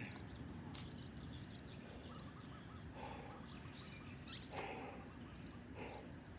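Outdoor ambience with a low steady background rumble and small birds chirping, with a short trill in the middle. A person breathes hard a few times, catching his breath between sets of push-ups and burpees.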